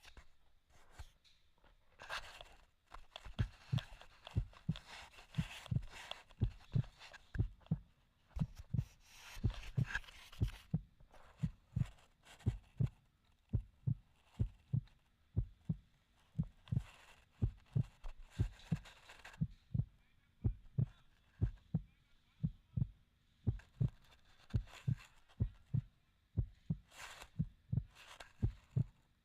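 Footsteps at a steady walking pace, dull low thumps about twice a second, with rustling of clothing or gear in places.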